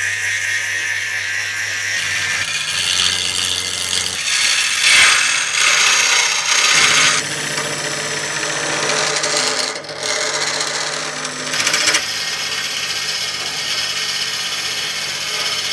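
Wood lathe spinning a wooden vessel while hollowing tools and a gouge cut into it: a steady hiss of cutting over the lathe motor's hum. The sound changes abruptly several times.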